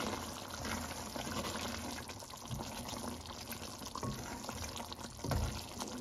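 A wooden spoon stirring a simmering chicken-and-chickpea curry in a metal pot: wet sloshing and bubbling of the thick gravy, with two soft thumps, one about halfway and one near the end.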